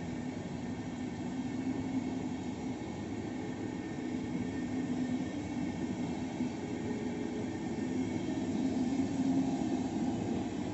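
Passenger coaches of a regional train rolling past on the rails: a steady rumble of wheels on track with a low hum, growing slightly louder near the end.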